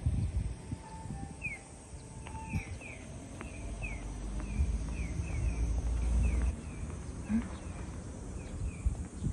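Small birds chirping in short, falling calls, about two a second, over a steady low outdoor rumble that swells briefly in the middle.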